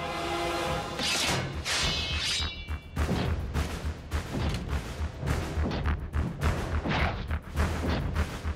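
Animated sci-fi battle sound effects. Whooshing swells come in the first few seconds, then from about three seconds in a dense, irregular run of blaster shots, booms and crashes, over a music score.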